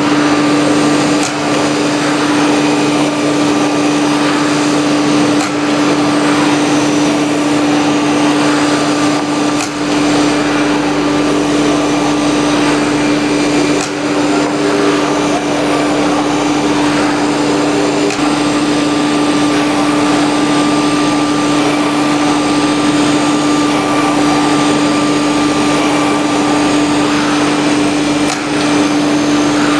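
CNC nesting router running while machining MDF: a steady spindle hum over dense cutting and dust-extraction noise, with a few brief dips and clicks.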